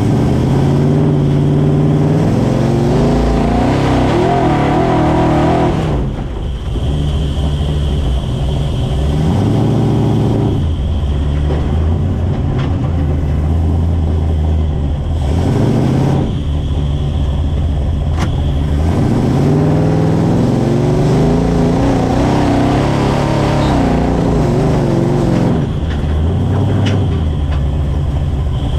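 Off-road vehicle's engine, heard from inside the cab, revving up and easing off several times as it climbs over dirt hills, its pitch rising under load and dropping back between climbs.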